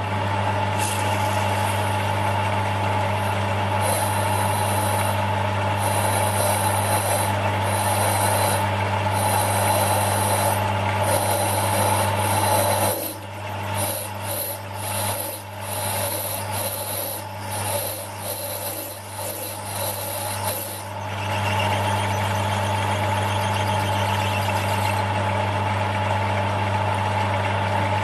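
Small bench metal lathe running with a steady motor hum and whine while a 4.3 mm twist drill in the tailstock bores into a workpiece held in an ER collet chuck. For several seconds in the middle the steady hum drops away and the sound turns uneven, then the hum comes back.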